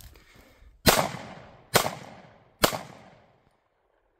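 Walther PDP Pro SD pistol firing three shots a little under a second apart, each dying away in a short echo.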